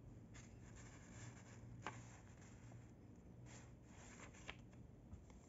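Faint rustling of paper instruction leaflets being handled and shuffled, with a light tap about two seconds in.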